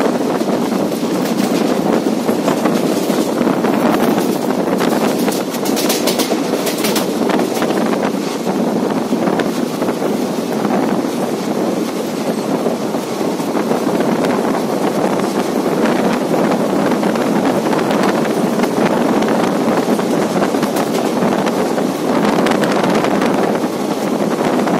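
Passenger train running at speed, heard from on board: a steady rumble of wheels on rails with rail-joint clicks, and a quick run of clattering about six seconds in.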